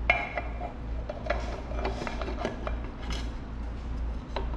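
Metal engine parts being handled on a workbench: a sharp clink at the start, then scattered lighter taps and clicks as a two-stroke engine side cover and its screws are fitted.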